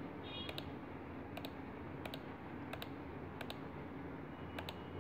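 Computer mouse clicking: about seven light double ticks (button press and release) spaced roughly a second apart, each click filling another section of a drawing with the paint-bucket fill tool. A faint steady hum lies underneath.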